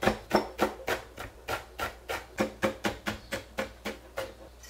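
Chef's knife thinly slicing crunchy napa cabbage stems against a cutting board, a steady run of crisp chops about four a second that stops shortly before the end.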